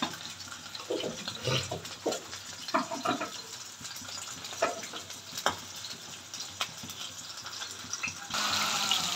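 Masala-coated whole fish shallow-frying in hot oil on a flat iron pan: a steady sizzle with irregular pops and spatters of oil. About eight seconds in the sizzle suddenly gets louder and denser.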